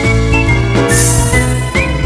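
Background music: a tune with a steady bass line and a high, wavering melody, with a bright jingling shimmer about a second in.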